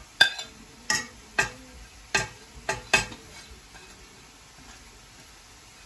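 A spoon knocking against a plate and the pan's edge as chopped leaves are scraped off the plate into the pan: six sharp clicks over about three seconds, then it stops.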